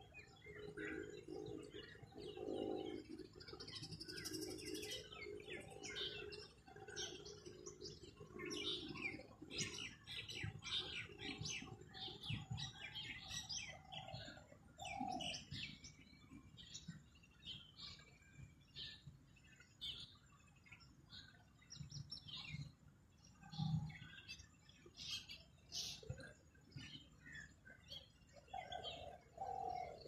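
Several birds chirping and tweeting in short, quick calls, with low cooing calls repeating through the first ten seconds or so.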